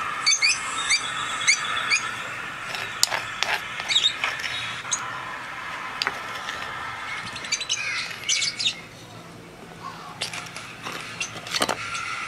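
Birds chirping, a run of short high calls about two a second early on and more calls later, with scattered clicks and taps.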